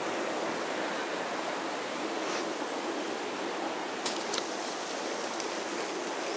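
Steady rush of a fast-flowing river.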